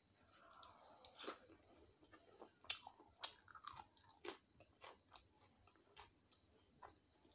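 Mouth sounds of a person chewing a bite of puri dipped in chole: a string of irregular short clicks and crackles.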